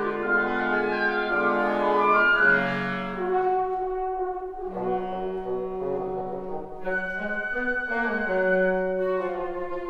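A classical wind sextet of flute, oboe, two clarinets, horn and bassoon playing in sustained chords. The texture thins to a few held notes about halfway through and fills out again near the end.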